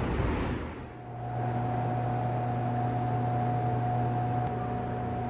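A steady machine hum with a constant mid-pitched tone over a low drone, starting abruptly about a second in after a short stretch of clattering background, with one faint tick near the end.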